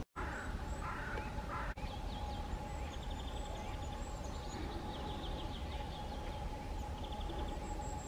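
Forest songbirds singing: short, rapid trills repeated every second or two, with softer chirps early on. Under them run a steady low rumble and a faint steady hum.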